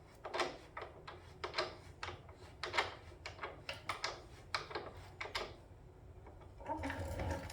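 Light metallic clicks and ticks, irregular at about two or three a second, as the motorcycle's front axle is turned and threaded in by hand and the tools touch the fork and hub; a duller, steadier sound follows near the end.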